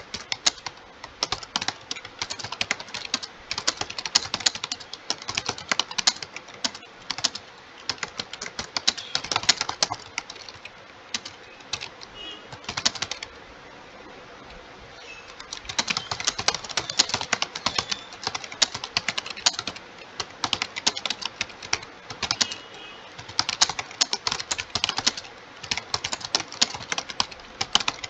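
Computer keyboard being typed on fast and continuously, a dense run of key clicks, during a timed typing test at about 60 words a minute. The typing stops for about two seconds about halfway through, then resumes.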